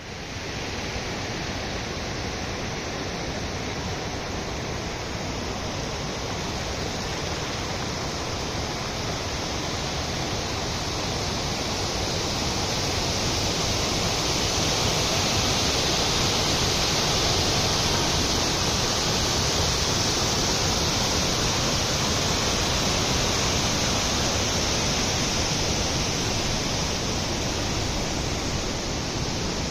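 Steady rushing of falling water, a continuous even sound that grows a little louder about halfway through.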